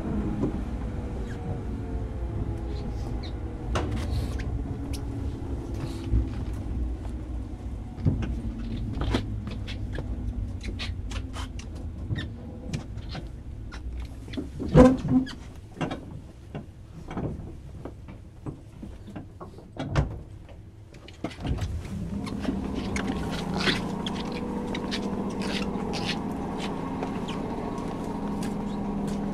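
Running sound heard inside a JR Kyushu 103-series electric train car: the motor hum falls in pitch as the train slows, with a string of clicks and knocks from the running gear. After a short lull about twenty seconds in, a steady hum takes over.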